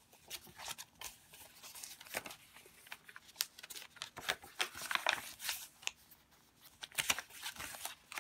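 Paper pages of a handmade junk journal being turned and handled: a run of crisp rustles and flaps, busiest about five seconds in and again about seven seconds in.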